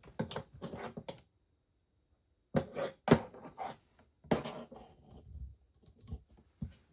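Clattering and knocking of tools and parts being handled on a soldering workbench, in three bursts about a second long, then scattered light taps.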